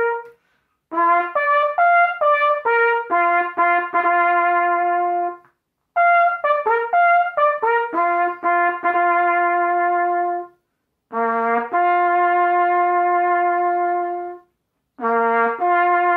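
Solo cornet playing a bugle-style call on a few open notes: phrases of quick repeated notes, each ending on a long held note, with short silent breaths between the phrases.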